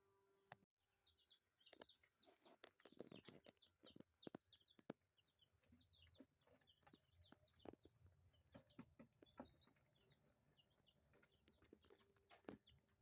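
Faint clucking and chirping of poultry, many short, high chirps with scattered clicks and knocks among them.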